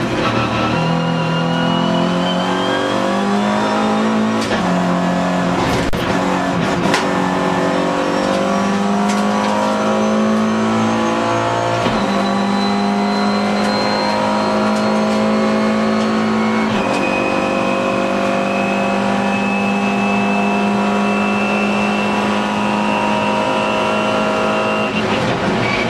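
Alfa Romeo 145 Cup race car's engine heard from inside the cabin under hard acceleration. Its pitch climbs in several pulls, each ending in a sudden drop at an upshift, with two sharp knocks about six and seven seconds in. It then holds a high, steady note and lifts off near the end.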